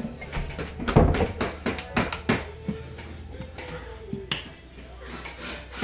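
Irregular knocks, taps and footsteps as someone walks through doorways and handles the phone, busiest in the first two and a half seconds with one more knock a little after four seconds, over a low steady hum from about a second in.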